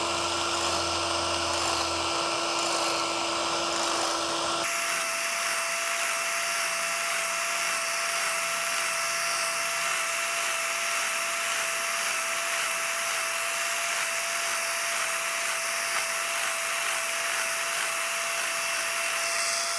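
Electric power scraper running steadily, its blade cutting a crosshatch scrape pattern into a flat metal plate. The motor's tone steps higher about four and a half seconds in.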